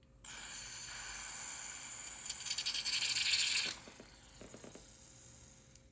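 Butane hissing as a refill can's nozzle is pressed into a Zippo Contempo butane lighter's fill valve. It lasts about three and a half seconds, grows louder toward the end, then cuts off suddenly, followed by a few faint clicks.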